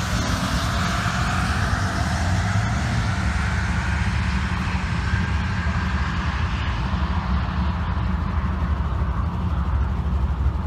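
Ford F-150's 2.7L twin-turbo EcoBoost V6 accelerating at full throttle down a drag strip, its engine note rising through the gears and fading as it pulls away into the distance, over a steady low rumble.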